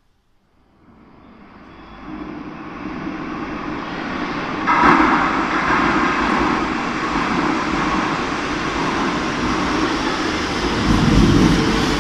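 Madrid Metro Line 6 train approaching through the tunnel into the station: its running noise rises from near silence over the first few seconds, jumps louder about five seconds in, then holds steady and loud.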